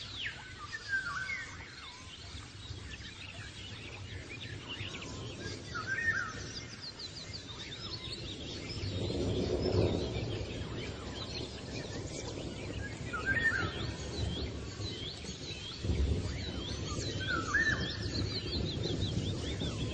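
Birds chirping and singing, with a short phrase repeated every few seconds and higher trills between, over a low rumbling background noise that swells in the middle and again near the end.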